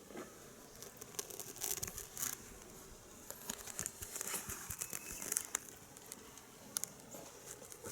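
Kittens playing with a toy lion: light pattering of paws with claw scratches, clicks and rustling that come in irregular spurts.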